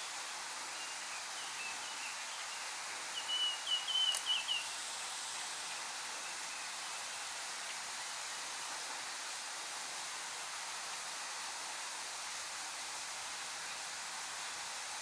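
Red-billed leiothrix singing: a few faint notes early on, then a short, louder warbling phrase of quick notes about three seconds in. A steady hiss of background ambience runs underneath.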